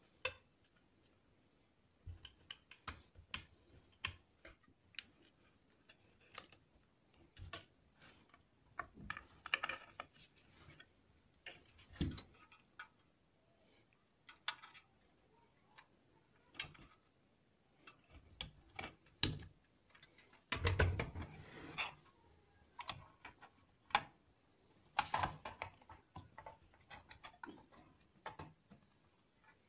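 Irregular small clicks, taps and short scrapes of tools and small parts being handled on a workbench, with longer rustling scrapes about two-thirds of the way through.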